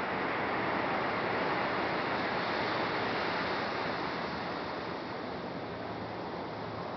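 Surf breaking on a sandy beach: a steady rush of waves that swells over the first couple of seconds and eases off a little in the second half.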